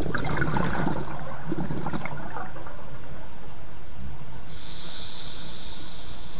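Scuba diver breathing through a regulator underwater: a rush of exhaled bubbles for the first couple of seconds, then a hissing inhale through the regulator about four and a half seconds in.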